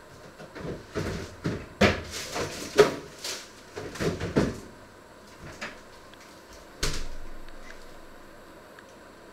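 Kitchen clatter: a quick run of knocks and bumps of things being handled and cupboards worked, then one sharp knock about seven seconds in that rings on and fades away.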